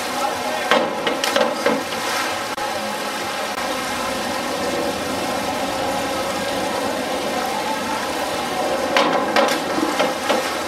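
Two springboard dives: the board knocks at each takeoff and the diver splashes into the pool, about a second in and again near the end, over a steady hiss.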